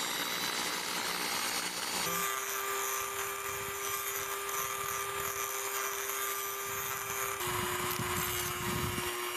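A small electric drill running steadily as it bores holes in a clear acrylic container. Its whine shifts pitch about two seconds in and drops slightly near the end.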